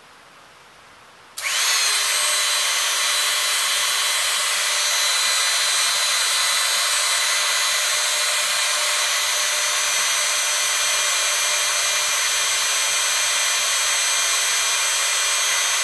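Hydraulic press pump starting suddenly about a second and a half in and then running steadily. It makes a loud hiss-like noise with several high, steady whines in it while the press ram retracts off the cylinder under test.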